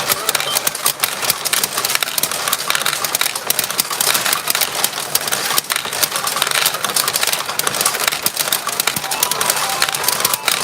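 Steel pachinko balls clattering through a retro pachinko machine: a dense, continuous rattle of fast metallic clicks.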